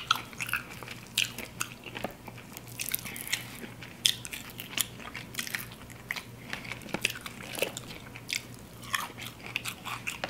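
Someone eating crispy fried chicken wings: bites and chewing with many short, irregular crunches of the fried crust.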